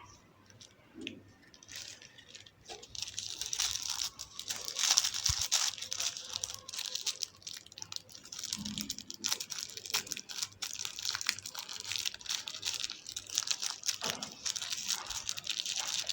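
Packaging crinkling and rustling as it is handled and opened, with many small crackles and clicks.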